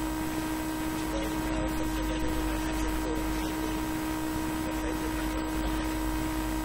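Steady hum and hiss from the sound system, with a strong constant low tone, and faint, indistinct speech underneath.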